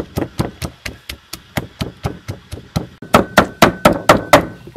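Wooden pestle pounding garlic, ginger and red chilies in a wooden mortar for chili sauce, a quick even run of about four to five thuds a second. The strokes get harder about three seconds in and stop shortly before the end.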